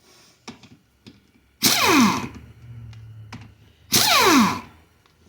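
Handheld power tool run in two short bursts about two seconds apart, its motor whine falling in pitch as it spins down after each.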